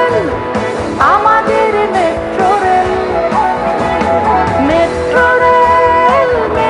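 A woman singing a Bengali song over instrumental backing. Her voice holds long notes and slides and bends between them.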